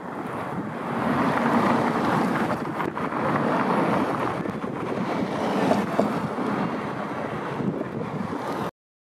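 Steady rushing noise of wind on the microphone over outdoor street ambience, which cuts off suddenly near the end.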